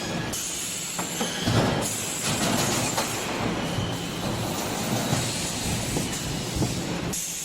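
Machinery of a 3D steel wire-mesh EPS panel production line running, with a dense, continuous mechanical clatter and rattle. Its character changes abruptly about a second and a half in and again near the end.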